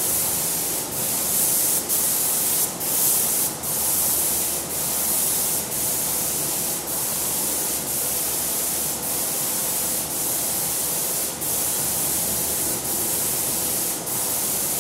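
Airless paint sprayer (Aurora 5000) spraying dispersion paint through a 525 tip: a loud, steady hiss from the gun, broken by a short dip about once a second.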